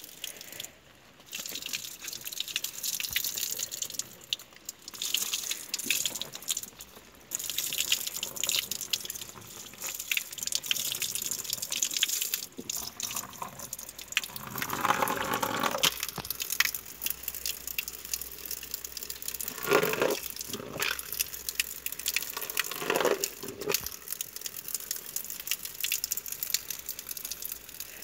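Water running from an outdoor spout and splashing onto a sheet of drawing paper held under the stream, washing out the ink drawing. The running water is steady, with a few louder splashing spells around the middle and about two-thirds through.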